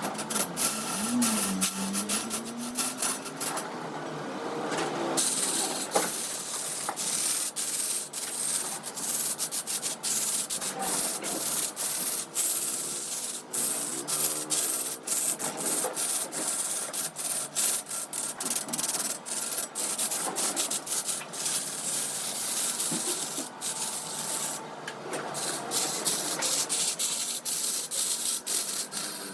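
Wood turning on a lathe: a tool or abrasive scraping and rasping against the spinning wood, a dense, irregular crackle of scrapes over a steady hiss, easing briefly about four seconds in.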